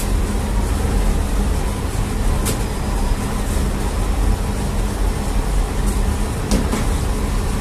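Steady rumble and hum of running bakery machinery: the bread oven and dough machine. Two short sharp knocks or slaps stand out, about two and a half seconds in and about a second before the end.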